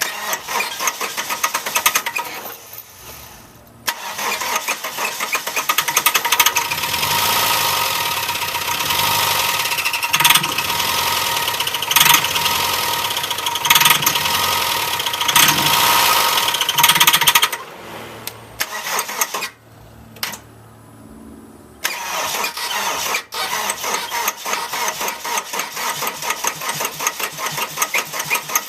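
A 1998 Dodge Neon's four-cylinder engine being started and run with its oil drained, in three long stretches with quieter pauses between, to make it blow up.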